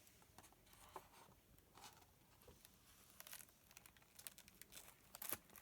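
Near silence, with faint scattered rustles and soft clicks, a few louder ones near the end.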